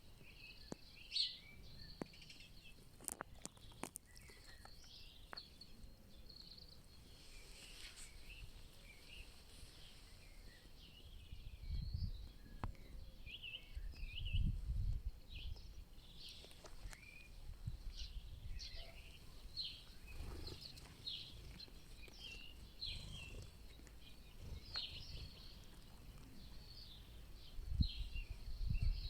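Several forest songbirds singing, with short chirps and warbled phrases overlapping throughout. A few sharp clicks come in the first seconds, and low rumbles come at times: about midway and near the end.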